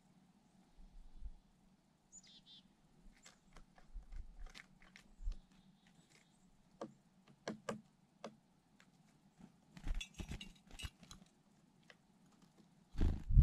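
A short, wavering, high call about two seconds in, from a black-capped chickadee, then scattered sharp clicks and taps, with a louder low thump near the end while a chickadee is on the rim of a ceramic teacup of sunflower seeds.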